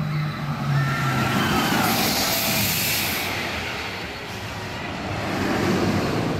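Steel roller coaster running on its track: a steady rumbling rush that swells into a loud hiss about two seconds in and eases off near the fourth second.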